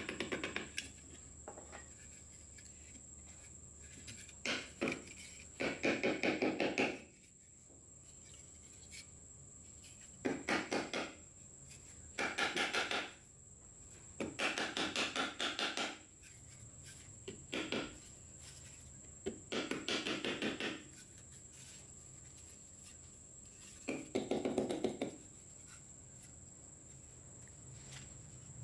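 A hand hammer strikes the rusted metal housing of a Hitachi G13S1 angle grinder against a steel block, to knock its seized parts loose. The blows come in about nine quick bursts of rapid strikes, each lasting up to a couple of seconds, with pauses between them.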